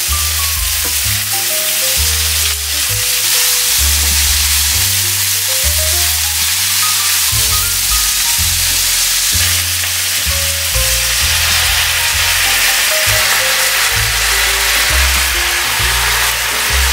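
Sliced onions and carrots with minced pork sizzling steadily in hot oil as they are stir-fried in a pan. Background music with a stepping melody and a bass line plays along.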